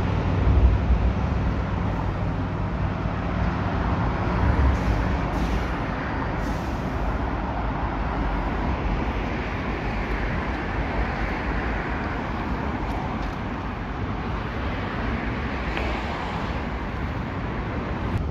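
Steady outdoor traffic and vehicle noise, an even rush, with a deeper rumble and hum in the first few seconds.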